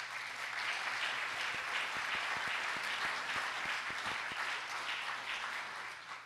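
Audience applauding: a dense, steady clatter of many hands clapping, easing slightly near the end.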